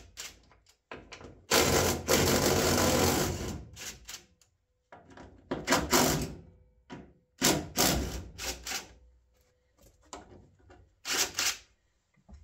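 Door hinge bolts being undone with a power tool: a long run of rapid rattling about two seconds in, then several shorter bursts.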